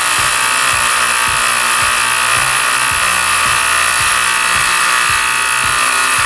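K SEND cordless handheld electric tire inflator running steadily, not super loud, while topping off a small mower tire.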